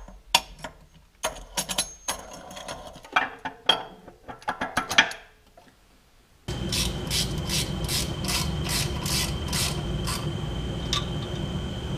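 Metal parts clinking as the tractor transmission's bearing support housing is set over the shaft. About halfway through, a ratchet on an extension starts running the housing's bolts in: a steady ratcheting with regular strokes about three a second.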